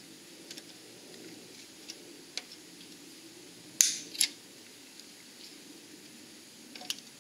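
Steel safety wire being cut and worked off an aircraft engine's oil drain plug with hand cutters: small metallic clicks, and two sharp snips close together about four seconds in.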